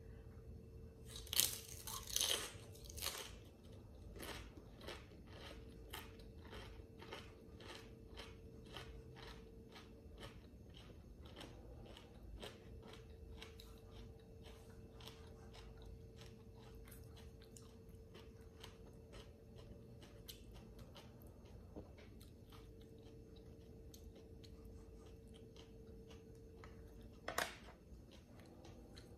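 Close-up eating: loud crunching bites in the first few seconds as a toasted sesame rice cracker topped with crunchy lotus-stem salad is bitten, then steady chewing about two chews a second that grows fainter, and one more sharp crunch near the end.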